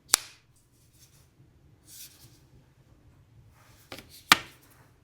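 Two sharp clicks from handling an AirPods Pro 3 case fitted with a Pitaka aramid fiber cover, one just after the start and a louder one about four seconds in. A soft rustle comes between them.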